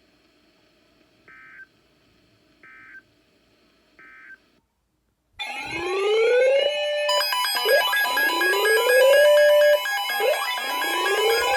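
Three short warbling data bursts about a second and a half apart: the end-of-message tones that close an Emergency Alert System broadcast. After a brief pause, a loud electronic alarm starts: rising siren-like wails repeating about every two seconds over steady tones, with more steady tones and a fast buzzing pattern joining about a second and a half later.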